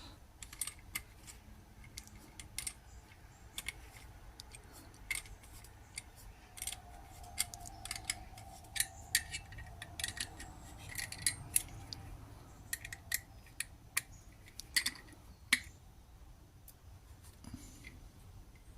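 Irregular light clicks and taps of small hand tools and metal parts being handled at a workbench, a few each second, with a faint steady tone for several seconds in the middle.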